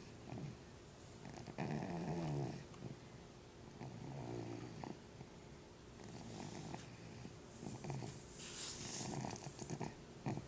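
A sleeping dog snoring, with a rough, buzzing snore breath every two seconds or so. The loudest breath comes about two seconds in.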